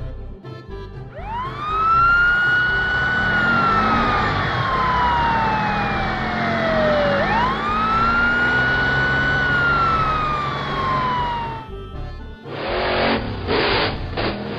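Cartoon siren sound effect wailing through two slow cycles, each rising quickly and then falling slowly, over a low rumble. Near the end it cuts off and a rough hissing noise with rapid pulses takes over.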